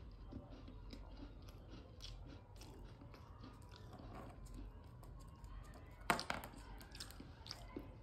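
A rose-ringed parakeet biting and crunching a piece of biscuit with its beak: faint, crisp clicks and crunches throughout, with a louder burst of crackling about six seconds in.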